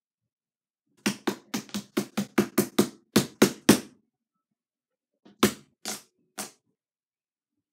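Hands slapping and poking a soft glue-and-borax slime on a board: a quick run of about a dozen short slaps, about four a second, then three more after a pause.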